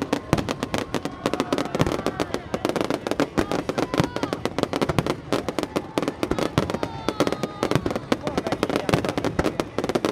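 Fireworks going off in a dense, continuous crackle of rapid pops, with people's voices underneath.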